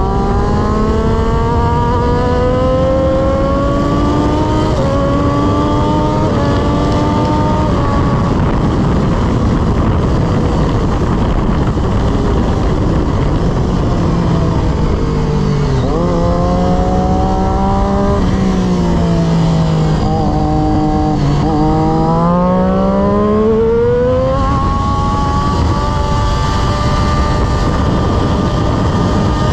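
Sport motorcycle engine heard from the rider's seat at racing speed: its pitch climbs in steps with brief breaks at the upshifts, then falls and climbs again through a corner before settling to a steady high note. Heavy wind rush runs underneath and all but covers the engine in the middle stretch.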